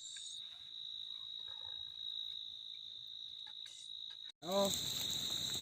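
Crickets trilling steadily on a single high note. A little over four seconds in, the sound drops out for a moment, then returns louder, with the crickets and a person's voice.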